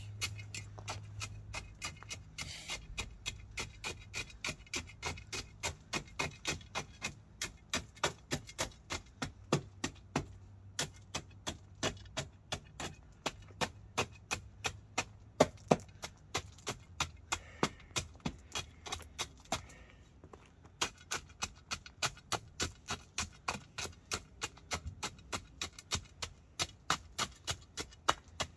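Steel tamping bar jabbed again and again into stone ballast, packing it under the ties of a 7¼-inch gauge track: quick, sharp strikes, about three a second, with a short pause about twenty seconds in.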